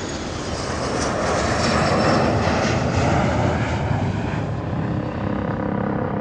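Jet airplane flying past: a wide engine roar that swells to its loudest about two seconds in, then eases a little.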